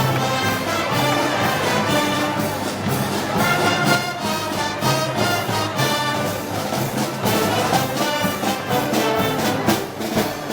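Brass band playing festival march music, with trombones and trumpets moving through changing held notes.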